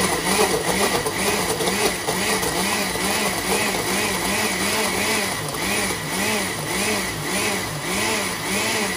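Countertop blender running, blending passion fruit juice with ice. The motor's pitch wavers up and down evenly about twice a second, and there is rougher crunching from the ice near the start.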